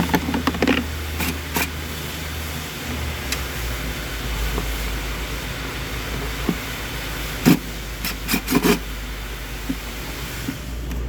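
A steady low engine drone that drops to a lower pitch about three seconds in, with scattered sharp metallic clicks and knocks from hand tools, several at the start and a cluster near the end.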